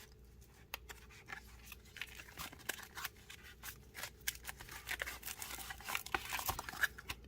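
Packaging being handled during an unboxing: a quick run of small clicks, scrapes and paper rustling as the box is opened and its paperwork pulled out, busier in the second half.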